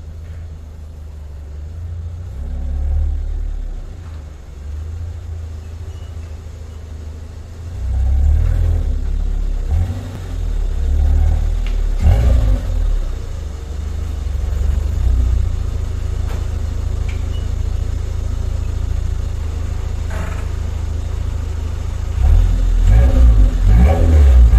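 Proton Wira's exhaust through an aftermarket twin-tip muffler, a steady low rumble that gets louder as the car backs in close, with a few short revs about 8 to 13 seconds in and louder swells near the end. The middle resonator (half twist, half pinhole) keeps the tone muted rather than raspy.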